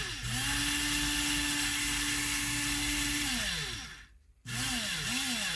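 Small DC motor of an opened-up electric pencil sharpener, whirring through its gears. It spins up, runs steadily for about three seconds, then winds down and stops. Near the end it is switched on and off in several short bursts, each one rising and falling in pitch.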